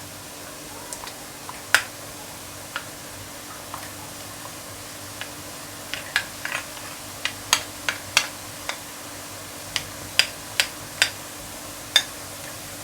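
Besan boondi frying in hot oil: a steady sizzle with sharp, irregular pops and crackles that come more often in the second half.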